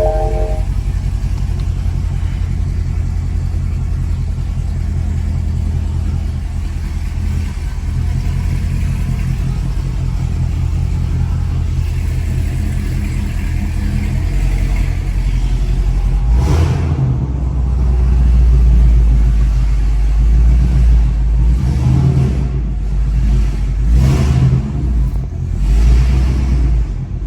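Chevrolet Camaro SS 1LE's naturally aspirated V8 running at a steady low engine speed. About sixteen seconds in it starts a run of louder surges as the car accelerates through the gears, the strongest several seconds later.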